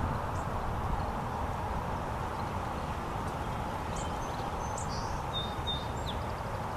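Outdoor ambience: a steady low background noise, with a few faint, short, high bird chirps about four to six seconds in.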